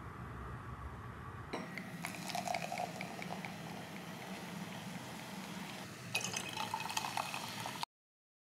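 Rième sparkling spiced-apple drink poured from a swing-top glass bottle into a wine glass, the liquid splashing and fizzing as the foam rises. The sound cuts off suddenly near the end.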